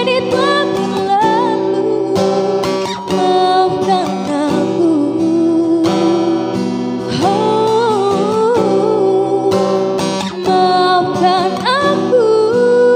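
Acoustic guitar playing a song's instrumental passage, with a wavering melody line over the strummed chords.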